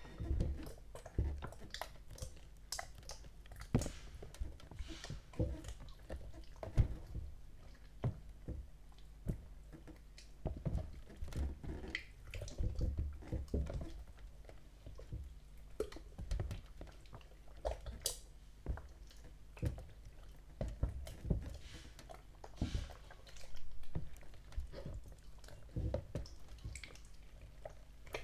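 Pudding water slime being squished and worked, giving irregular wet squelches and sticky clicks.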